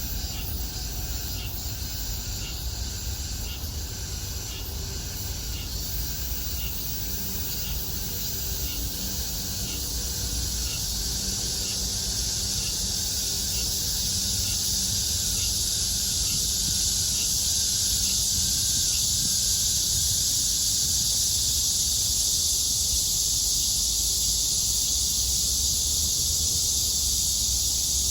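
Cicadas buzzing in chorus, a high shrill drone that swells louder through the second half, over a steady low rumble.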